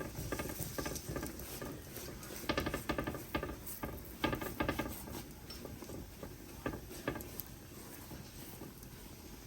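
Quick, light scraping and tapping of a cooking utensil on a flat griddle as oil is spread over a dhal puri, in short busy bursts in the first half that thin out later.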